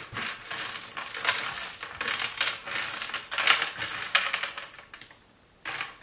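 Roasted peanuts rattling and their papery skins rustling on a plastic tray as hands rub them back and forth to loosen the skins. It comes in repeated strokes that die away about four and a half seconds in, with one more short rustle near the end.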